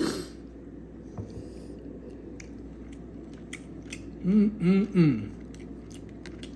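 A man chewing a mouthful of microwave chicken curry and rice, with small wet clicks throughout and a short breath at the start. About four seconds in he hums three quick closed-mouth notes that glide up and down, the loudest sound here.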